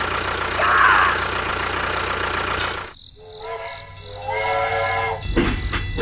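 A steady motor hum cuts out about three seconds in, followed by two blasts of a steam-train whistle, the second one longer.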